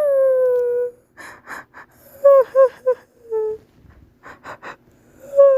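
Crying voice: a held wail trails off, then gasping sobs, short broken sobs and a brief whimper, and a new wail starts near the end.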